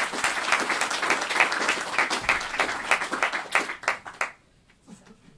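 An audience applauding, the clapping stopping about four seconds in.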